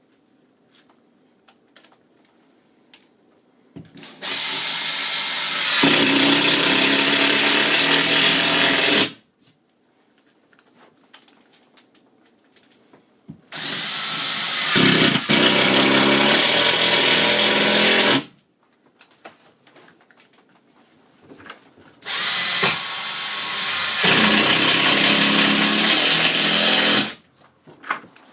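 Impact driver driving three square-drive backer-board screws into cement board without pre-drilling, one after another. Each run lasts about five seconds and gets louder about two seconds in, as the screw bites and is driven home.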